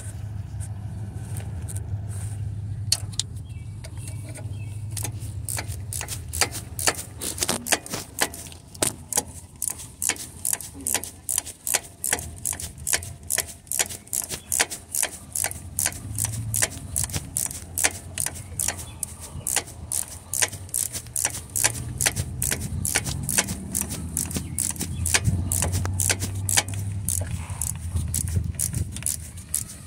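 Hand ratchet clicking in quick, uneven strokes while a bolt is turned during an engine torque mount replacement. The clicking starts a few seconds in and runs at about three to four clicks a second.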